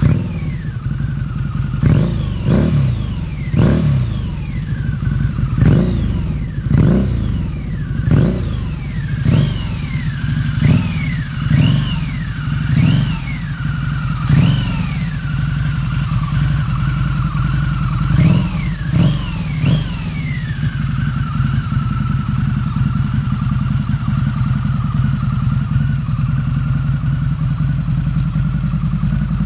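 Harley-Davidson Night Rod Special's Revolution V-twin running through aftermarket Vance & Hines exhausts: about a dozen quick throttle blips, each rising and falling, over the first two-thirds, then settling to a steady idle.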